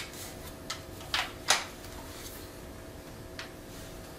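Sharp metallic clicks and clacks from handling the action of a Black Aces Tactical Pro Series X semi-automatic 12-gauge shotgun: about four in the first second and a half, then one more near the end.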